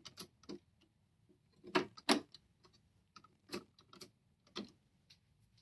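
Plastic Lego pieces clicking as longer Lego pins are pushed in to connect a bridge section: about eight irregular sharp clicks, the loudest pair about two seconds in.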